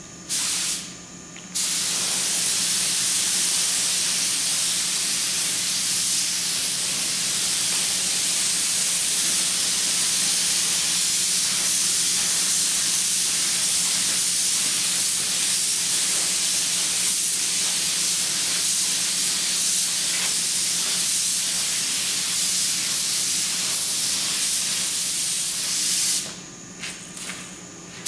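Compressed-air paint spray gun hissing as it sprays black paint onto a truck grille. A short burst comes first, then the trigger is held almost without a break for about 25 seconds, ending in a few short bursts.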